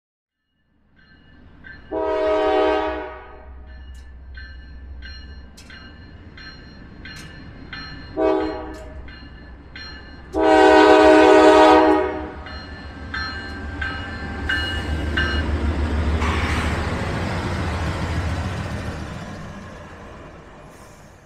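Norfolk Southern diesel freight locomotive sounding its horn for a grade crossing: a blast about two seconds in, a short one near eight seconds and a long one around ten to twelve seconds, while the crossing signal bell rings steadily. The locomotive then passes close with a swelling rumble of engine and wheels that fades near the end.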